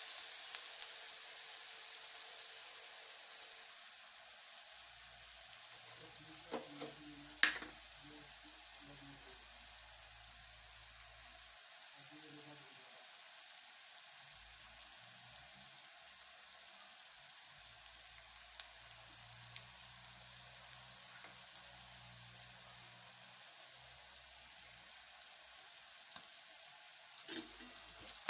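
Food frying in a hot pan: a steady, quiet sizzle, with a sharp light click about seven seconds in.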